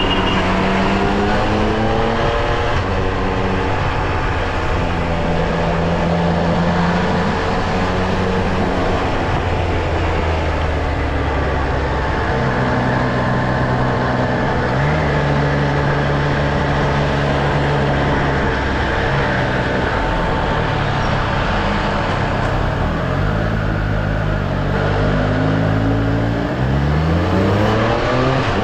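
Triumph Street Triple R inline three-cylinder motorcycle engine heard on the move, holding steady revs that step up and down between levels. Near the end the revs rise in quick sweeps as the bike accelerates through the gears, all over a steady rush of noise.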